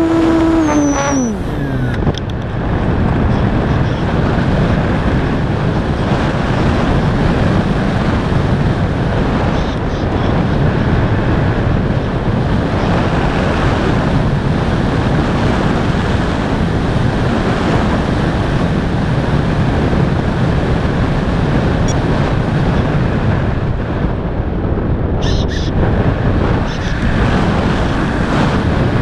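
A steady, loud rushing of air with no clear tone, like wind streaming past the microphone in flight. A pitched hum falls away and stops within the first two seconds.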